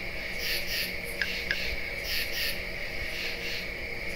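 Crickets chirping in repeated paired trills over a steady high ringing. It is the stock 'crickets' sound effect used to mark an awkward silence when nobody answers.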